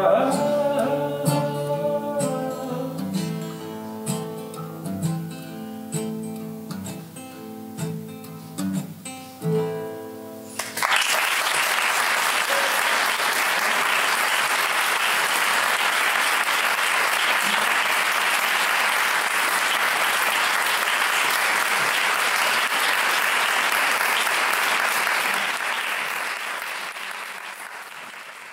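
A man singing with an acoustic guitar ends a song, the last sung notes giving way to a few plucked and strummed guitar notes. About eleven seconds in the audience breaks into steady applause, which fades out near the end.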